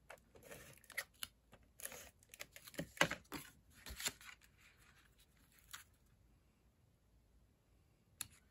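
Paper being handled with a tape runner laying down adhesive, then layers of cardstock pressed onto a card base: light rustles and clicks for about six seconds, the sharpest about three seconds in, then almost quiet apart from one click near the end.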